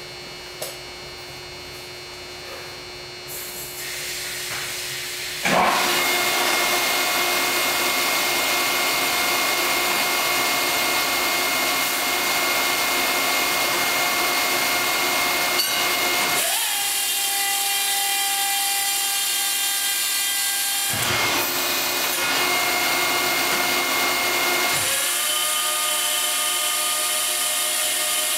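Hydraulic power unit of a 50-ton four-post press, driven by a 30 hp motor, running. It goes from a faint hum to a loud, steady whine about five seconds in, then shifts its tone several times as the ram comes down, builds pressure and reverses on pressure.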